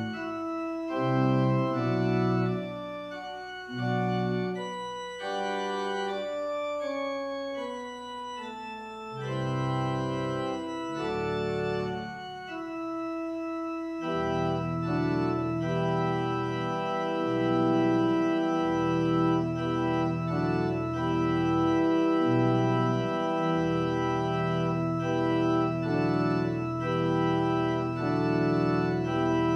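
Organ music: a slow piece of held notes and chords. About halfway through it broadens into long sustained chords over a low bass line.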